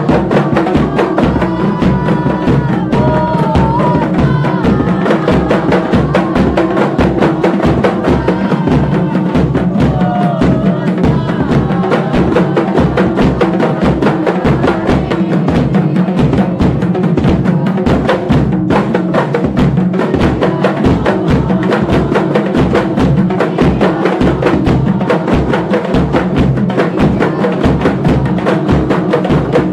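A group of kompang, Malay hand frame drums, struck by hand together in a steady, fast beat, with a man's voice singing over the drumming in the first part.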